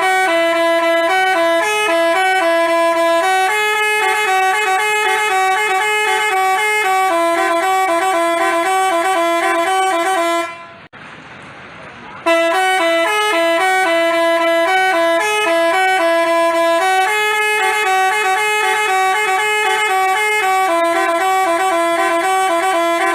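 Telolet 'basuri' musical bus horn playing its tune as a string of held notes stepping between a few pitches. The phrase breaks off about ten seconds in and, after a short gap, plays again from the start.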